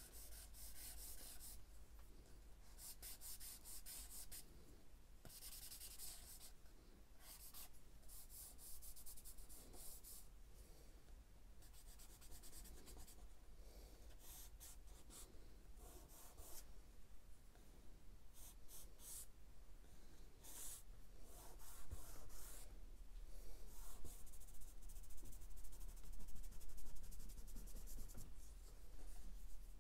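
Charcoal stick scratching across sketchbook paper in many short, irregular strokes, getting louder in the last third.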